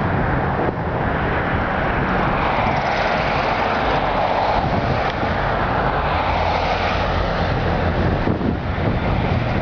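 A car driving, with a steady rumble of engine and road noise that swells in the middle and eases off again.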